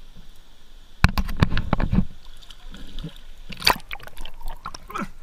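River water splashing and sloshing as someone moves through it, loudest for about a second starting a second in, with smaller sloshes and a single sharp knock after.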